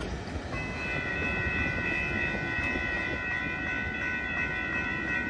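Railroad grade-crossing warning bell ringing as the crossing gates rise after the train has cleared. The ringing starts about half a second in as a steady cluster of high tones, over a low background rumble.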